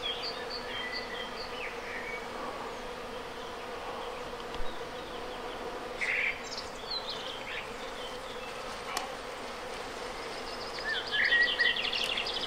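Natural swarm of honeybees buzzing in a steady, dense hum, with short high chirps over it at times.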